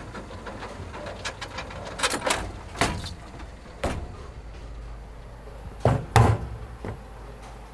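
Several irregular knocks and bumps over a steady low hum, the loudest two close together about six seconds in.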